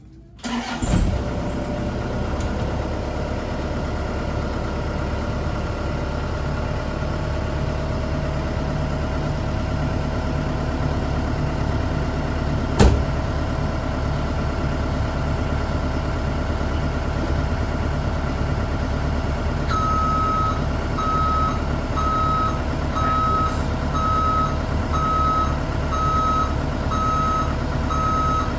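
A Bobcat E50 mini excavator's diesel engine starts about a second in and runs steadily. In the second half a travel alarm begins beeping about once a second as the new final drive is run, with the track off, to test it.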